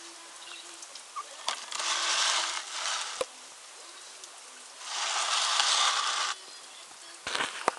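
Two bursts of scratching and rubbing against a plastic tub, each lasting about a second and a half, with a few sharp clicks in between.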